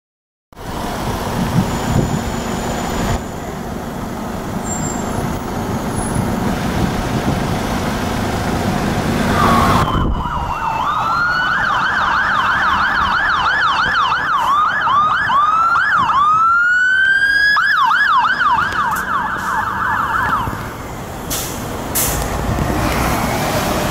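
Road traffic and a vehicle engine running for about the first ten seconds. Then a London Fire Brigade fire engine's electronic siren sweeps rapidly up and down in a yelp, with a slower rising wail in the middle, and cuts off about twenty seconds in, leaving the truck's engine and passing traffic.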